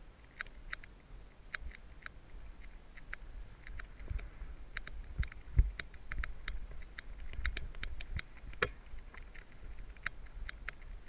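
Mountain bike rolling over a rocky, sandy dirt trail: irregular sharp clicks and rattles over a low rumble, with a heavier thump about halfway through.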